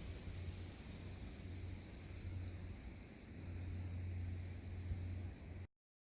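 Insects chirping in short, high, irregular pulses over a steady low rumble; the sound cuts off suddenly near the end.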